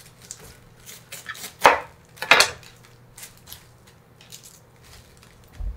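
Kitchen knife cutting into a head of iceberg lettuce on a wooden cutting board: two crisp, crunching cuts less than a second apart, with small rustles and taps of leaves around them and a soft low bump near the end.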